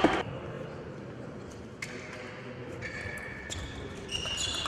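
Table tennis ball clicking sharply off table and paddle a few times, with short high sneaker squeaks on the court floor in the second half. A voice breaks off right at the start.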